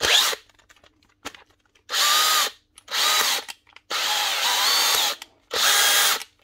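DeWalt 18V XR brushless cordless drill's motor run in short trigger bursts, five in all, the longest about a second, with a whine that rises a little within the bursts. The new chuck is held by hand, so the motor turns the spindle and screws the chuck tight onto its threads.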